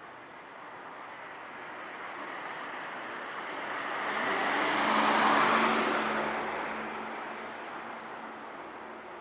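A car passing by: its tyre and engine noise swells to a peak about five seconds in, then fades away.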